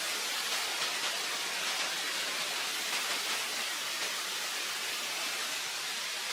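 Steady, even hiss of running or falling water.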